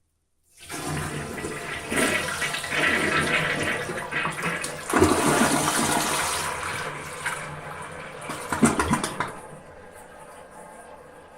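Toilet flushing: a loud rush of water with surges and gurgling that drains away about nine seconds in, leaving the quieter steady hiss of the tank refilling.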